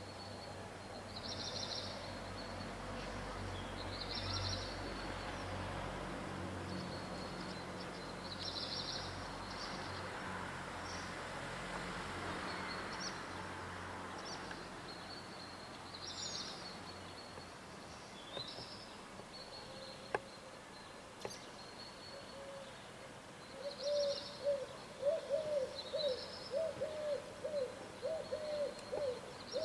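Dawn birdsong. One bird repeats short, high notes every couple of seconds. From about two-thirds of the way in, another bird gives a quick series of low-pitched calls, about two a second, over a faint low rumble.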